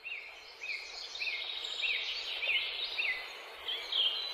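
Birdsong: a bird repeating a short rising-and-falling chirp about every half second, with other chirps above it, over a steady hiss.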